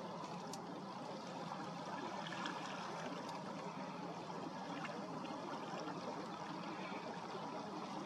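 Steady rushing background noise with a few faint ticks.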